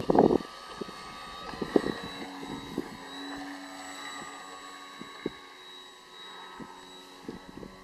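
Electric motor and propeller of a scratch-built foam RC plane whining steadily in flight, the pitch wavering slightly. A loud thump at the very start and a few smaller knocks break in over it.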